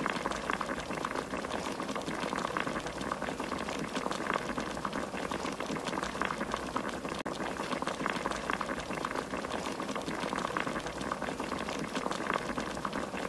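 Fresh anchovies in a red gochujang broth boiling over medium heat under a glass pot lid: a steady, dense bubbling and popping.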